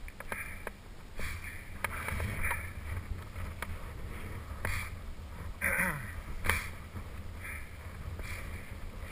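Skis scraping and chattering over hard, chopped-up snow on a steep descent, a fresh scrape every second or so as the skier turns, over a low wind rumble on the microphone.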